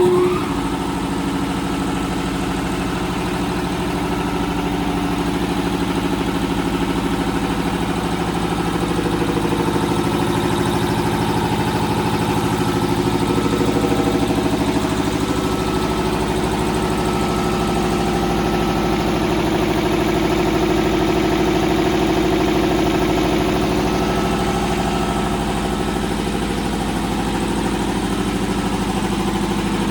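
Speedaire 25 HP two-stage air compressor running steadily, a continuous mechanical hum with several steady tones.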